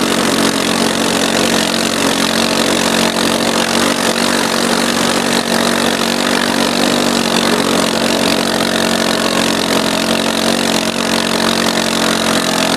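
Arctic Cat 250 ATV engine running at a steady speed under the load of towing two snowboarders on ropes.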